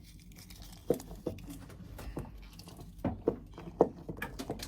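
Handling noises: small objects being picked up and moved, a light rustle broken by scattered small knocks and clicks, the sharpest about one second in and again around three to four seconds in.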